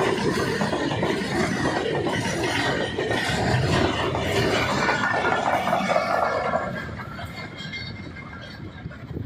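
A Pakistan Railways goods train of covered box wagons rolls past close by, its wheels clattering over the rails. The noise falls away from about six and a half seconds in, as the brake van at the tail of the train passes.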